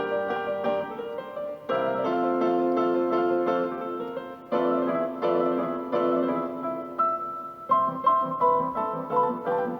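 Background piano music: gentle chords with short melodic notes, the chords struck afresh every few seconds.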